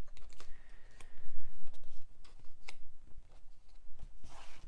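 Small cardstock pieces being picked up and set down on a paper-covered craft surface: scattered light taps and clicks, with a short rustle of paper sliding near the end.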